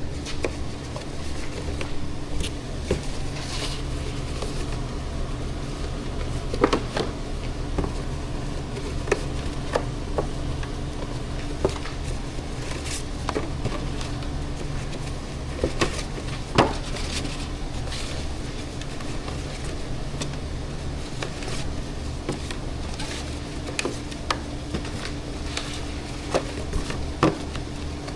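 Scattered clicks, knocks and clinks of kitchen things being handled, at irregular intervals over a steady low hum.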